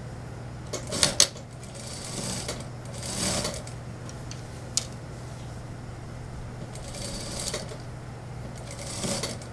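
Industrial lockstitch sewing machine stitching suit-trouser wool in a few short runs, starting and stopping as the fabric is guided. The first run, about a second in, is the loudest, and there is a single click near the middle.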